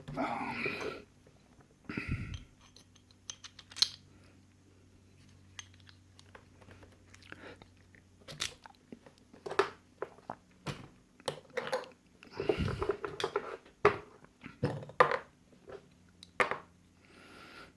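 Irregular clicks, taps and short scrapes of small metal lock parts and tools being handled while a padlock is taken apart, with a few brief rustles.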